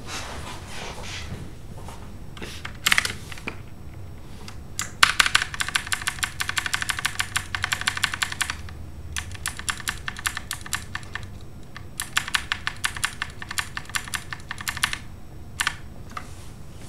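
Typing on a computer keyboard: quick runs of key clicks in three stretches of a few seconds each, with a few single keystrokes before and after.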